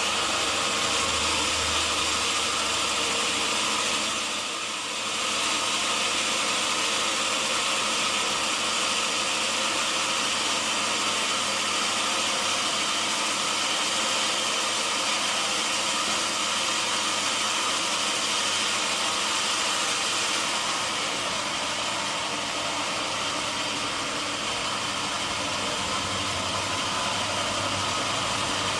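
Sawmill machinery running steadily, a dense, even mechanical noise that dips briefly about four to five seconds in.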